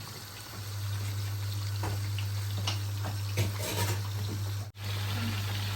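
Battered chicken pakoras deep-frying in moderately hot oil: a steady sizzling hiss with a few small pops, over a constant low hum. The sound drops out for a moment about three-quarters of the way through.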